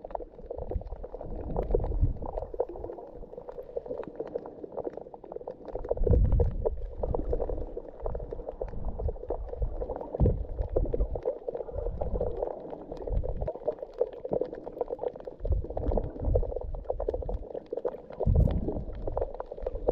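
Muffled underwater water noise picked up by a camera held below the surface: a continuous bubbling wash, with deep rumbles of moving water that swell and fade every few seconds.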